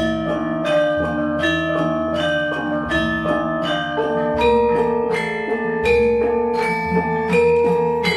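Bronze Javanese gamelan ensemble playing a lancaran in pelog tuning. Saron and demung keys are struck in a steady beat, with kettle gongs and a deep gong note recurring every second and a half or so ringing beneath them.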